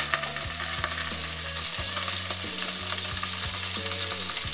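Raw chicken drumsticks sizzling in hot oil in an aluminium pot, a steady frying hiss.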